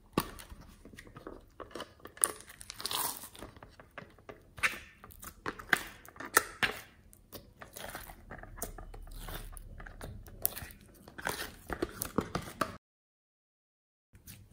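A plastic pencil case's latch clicks open, then sticky clear slime crackles and pops irregularly as it is peeled out of the case and squeezed by hand. The sound cuts out completely for about a second near the end.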